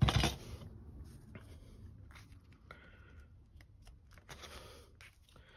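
Paper envelopes rustling and sliding as they are handled, folded over and pressed flat, with a few light taps. There is a short louder rustle at the very start.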